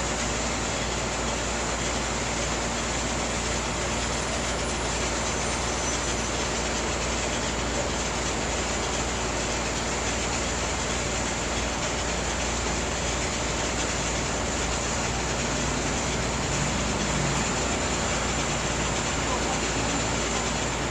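Steady, even hiss-like background noise with no distinct events, unchanged in level throughout.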